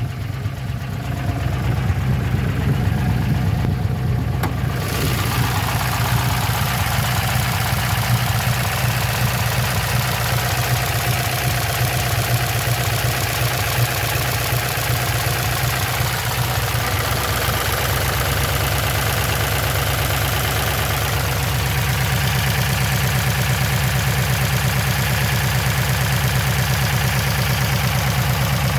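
LQ4 6.0-litre V8 idling steadily with a valvetrain tick, which the owner suspects comes from low oil pressure. The sound grows brighter about five seconds in.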